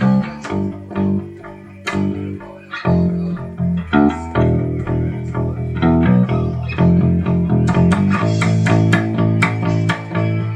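Electric bass guitar playing a plucked melodic line in a small room, the notes coming quicker in the second half.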